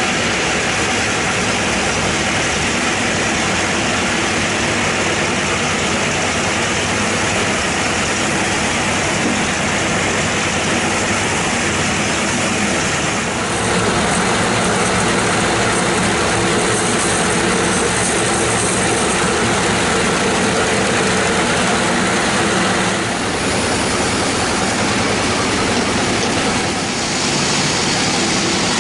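Sawmill band saw running and cutting a bayur log: a loud, steady whir of the blade over the drone of the mill's motor. The sound steps up about thirteen seconds in and dips briefly twice near the end.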